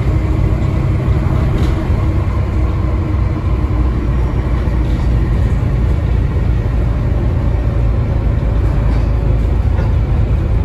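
Volvo B7TL double-decker bus with a Volvo D7C 7.3-litre engine and ZF Ecomat gearbox under way, heard from inside the passenger saloon: a steady low engine drone mixed with road and body noise.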